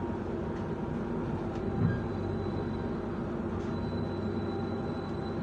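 Steady hum inside an economy-premium passenger train coach standing at a station platform just after arrival, with one soft thump about two seconds in.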